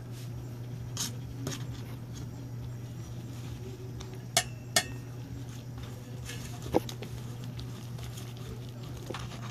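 A metal fork stirring a wet flour-and-cornstarch mix in a stainless steel bowl: soft scraping with a few sharp clinks of the fork against the bowl, two of them close together about halfway through. A steady low hum runs underneath.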